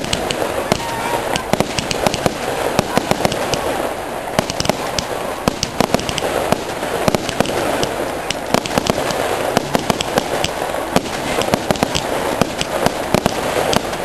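Fireworks going off in an aerial display: a rapid, irregular string of bangs and crackles with no pause.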